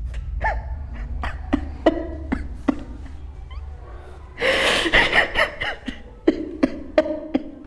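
A young man sobbing: short broken cries and catching breaths, with a louder, breathier cry about four and a half seconds in.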